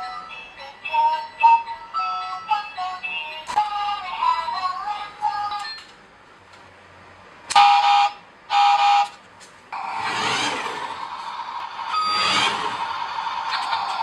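An electronic tune from the toy RC cement mixer truck's built-in music player, then two short electronic horn honks from its horn key. From about ten seconds in, the toy truck runs with a steady electronic buzz whose noise swells and fades.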